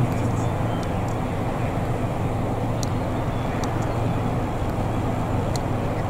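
Steady low rumble of distant road traffic, even throughout, with a few faint high ticks.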